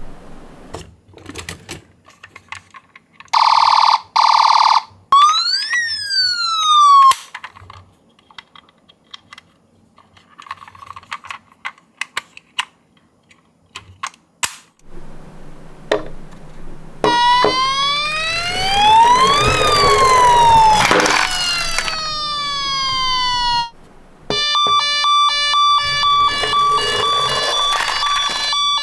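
Ambulance siren sounds with scattered small clicks and rattles between them. There is a short buzzy tone, then a wail that rises and falls, then several seconds of clicking. After that a longer wailing siren starts about halfway through, and near the end a two-tone hi-lo siren alternates steadily.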